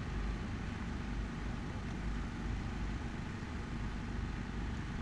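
Steady low background rumble of outdoor ambience, with no distinct bursts, voices or music.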